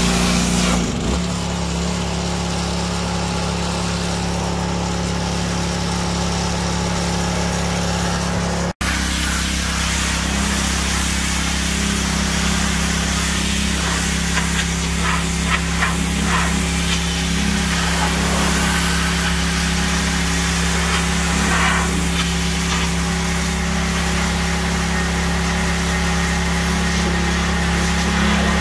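Pressure washer running steadily as it sprays the truck's painted body, a steady motor note under the hiss of the water jet. The sound drops out for an instant about nine seconds in.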